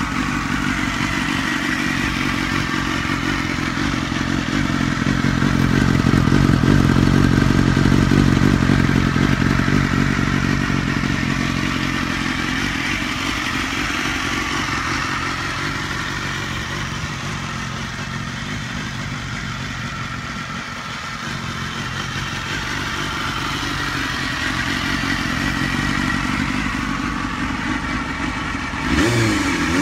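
Honda Hornet 250's inline four-cylinder engine idling steadily. It swells a little partway through, and a rev begins near the end.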